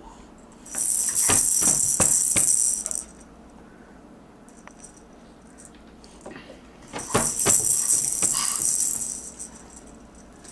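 A baby shaking a rattle toy in two bursts of about two seconds each, with a few knocks as it is banged while shaking.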